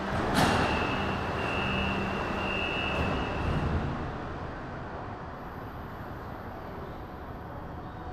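Jinan Metro train and station noise. A sharp knock comes near the start, then a high steady tone lasting about three seconds, then the sound settles into a quieter steady rumble.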